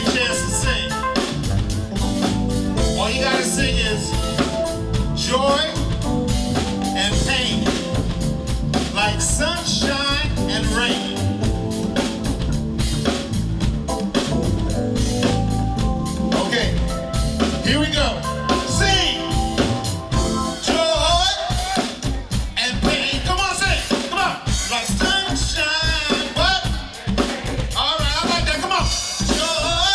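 Live band music with a drum kit and other instruments playing steadily. About two-thirds of the way through, the bass end drops away, leaving the drums and higher parts.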